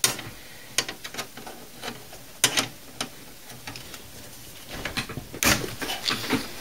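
Rubber fan-mounting grommets being pulled out of the sheet-steel fan mount of a desktop computer case: scattered sharp clicks and knocks, with a spell of rubbing and scraping near the end.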